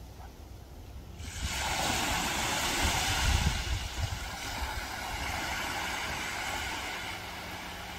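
Sea surf washing in, with wind rumbling on the microphone; the rush of water starts suddenly about a second in and eases slowly.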